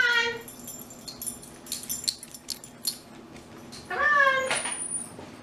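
Miniature schnauzer whining: a short rising-and-falling cry at the start and a longer, drawn-out one about four seconds in, with light clicks and taps in between.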